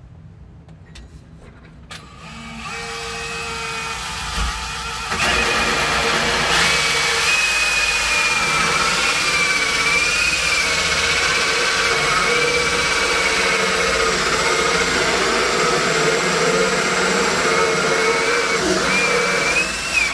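Power drill driving a 2 1/8 inch hole saw into a wooden slab door. The drill spins up about two seconds in, bites harder about five seconds in, then runs steadily under load with a wavering whine before stopping abruptly near the end.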